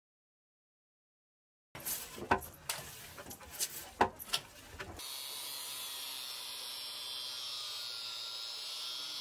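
Silence, then an electric hand planer worked along a timber beam: sharp irregular knocks and clatter of the tool on the wood over a noisy rasp. About five seconds in this gives way to a steady high-pitched hiss.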